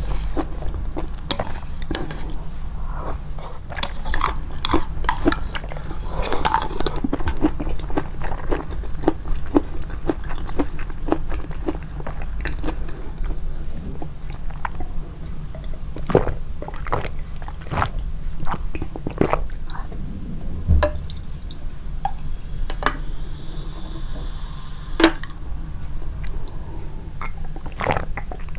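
Close-miked mouth sounds of someone eating japchae glass noodles: wet chewing with many irregular clicks and smacks, and a brief noisier, slurpy stretch about five seconds in.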